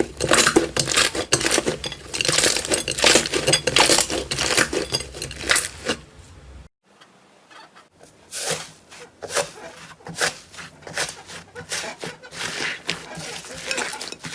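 Slime being squeezed, poked and stretched by hand, giving a rapid run of crackling, clicking pops. It breaks off for about a second halfway through, then picks up again with sparser pops.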